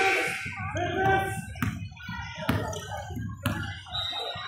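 Basketball dribbled on a hardwood gym floor, three bounces about a second apart, over indistinct voices of players and spectators.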